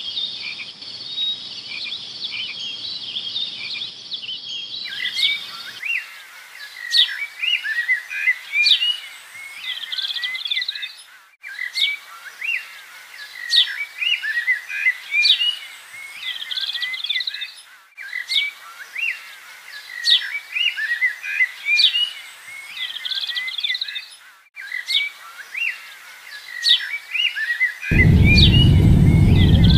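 Many small birds chirping and trilling, after a few seconds of steady high insect-like trilling; the birdsong stops dead for an instant about every six or seven seconds as if looped. A loud low rumble cuts in near the end.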